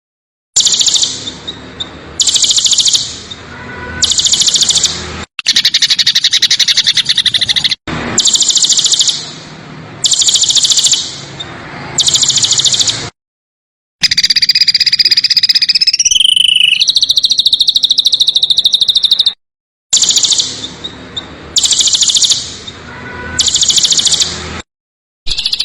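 A songbird's fast, rough high trills: bursts of about a second with short breaks, plus two longer runs of several seconds, one of which slides down in pitch partway through. Several abrupt dead-silent gaps mark edits in the recording.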